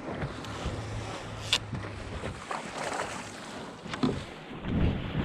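Water slapping and sloshing against a kayak hull in wind-driven chop, with a sharp knock about a second and a half in and another about four seconds in.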